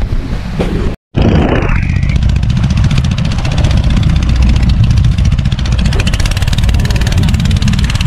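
Small outrigger boat's engine running steadily at speed, a loud, fast, even putter, starting abruptly about a second in with a brief rush of noise.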